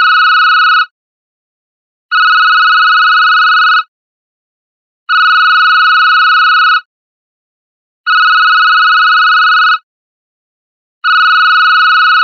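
Old digital phone ringtone: a shrill electronic ring, each burst about a second and a half long, repeating every three seconds with silence between.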